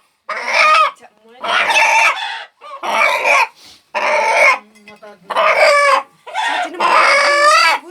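Rooster calling loudly over and over: about six short calls, each under a second, with brief gaps between them.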